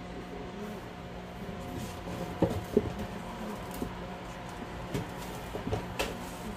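Indoor room tone with a steady low hum, broken by a few light knocks and clicks.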